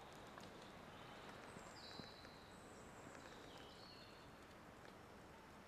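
Near silence: faint outdoor woodland ambience, with a few thin, high whistling notes about two to four seconds in.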